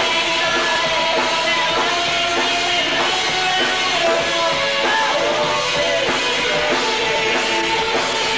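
Rock band playing live: electric guitar, bass and drums, with a lead voice singing over them.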